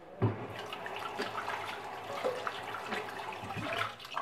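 Kitchen faucet running into a sink, starting abruptly with a knock about a quarter second in and stopping just before the end.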